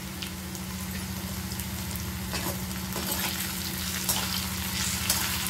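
Sliced bitter gourd sizzling and crackling in hot oil in a kadai, with a spatula stirring through the slices and clicking against the pan now and then.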